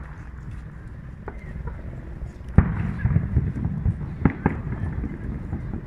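Aerial firework shells bursting over a steady low rumble. A faint pop comes about a second in. The loudest bang comes about two and a half seconds in, followed by a rumbling crackle, and two more bangs close together near the end.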